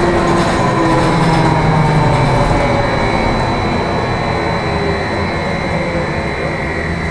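Trolleybus in motion heard from inside the passenger cabin: road and running noise with a faint electric traction-motor whine that drifts down in pitch, the whole sound easing off slowly as the trolleybus slows.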